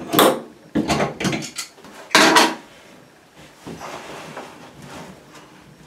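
Metal clicks and clanks of pliers working the nut of an old toilet supply line at the shutoff valve, loosening it, with the loudest clank about two seconds in. Fainter handling noise follows as the fitting is turned by hand.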